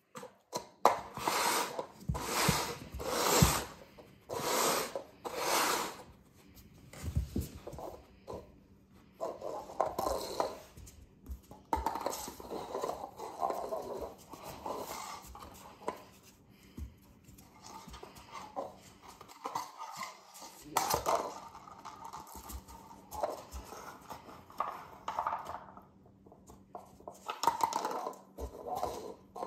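Paper cups slid scraping across a vinyl plank floor, about five quick sweeps in the first few seconds, then a golden retriever puppy nosing and knocking the cups over, with irregular scuffs, light knocks and the clicks of its claws on the floor.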